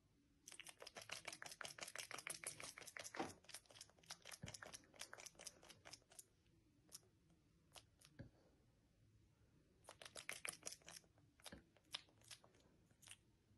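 Faint, rapid dry clicking: a dense run of clicks lasting several seconds, a few single clicks, then a second shorter run.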